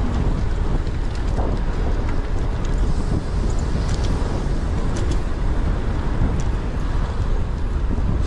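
Wind buffeting the microphone of a camera worn by a cyclist on a moving road bike, a steady low rumble mixed with tyre and road noise and nearby car traffic. Scattered light clicks run through it.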